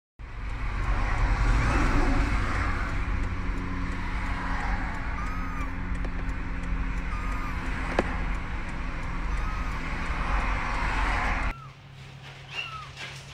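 Steady road rumble inside a moving vehicle, with a kitten giving a few faint short mews over it and one sharp click about eight seconds in. Near the end the rumble cuts off to a quieter room where the kitten mews again.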